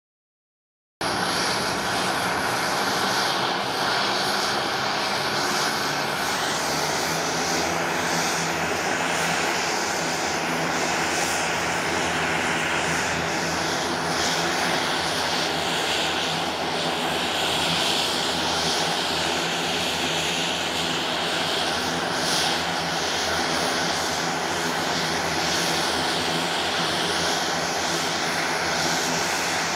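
Twin Garrett TPE331 turboprop engines of a Beech B100 King Air running steadily with propellers turning while the aircraft stands still. The sound cuts in abruptly about a second in and then holds level.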